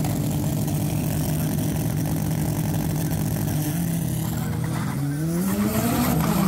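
Drag-racing car's engine running at a steady speed, then revving up with a rising pitch about five seconds in.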